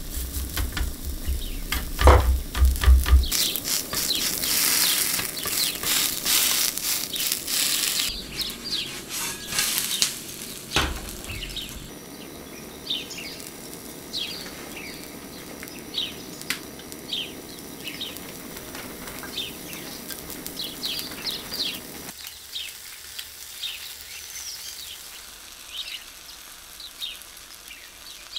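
Shredded potato sizzling as it fries in a hot square pan: a dense, loud crackle for the first dozen seconds while it is pressed down, then a quieter steady sizzle with scattered sharp pops. A couple of dull knocks come about two seconds in and again around eleven seconds.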